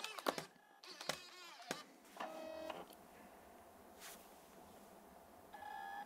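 A few clicks, then the MacBook's slot-loading optical drive whirring in two short spells, about two seconds in and near the end, as it tries to read the install DVD for a boot.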